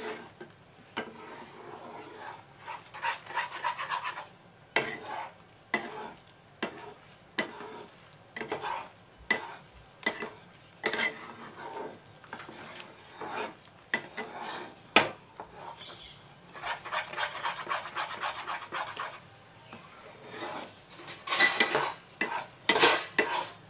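A spatula stirring and scraping a thick gram-flour, sugar-syrup and ghee batter around a shallow pan, with irregular knocks of the spatula against the pan and spells of steady scraping, loudest near the end. This is the constant stirring of Mysore pak as it cooks in ghee.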